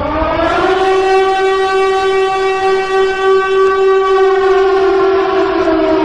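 Fire-alarm siren sounding a wailing tone: the pitch rises at the start, holds steady, then begins to fall near the end.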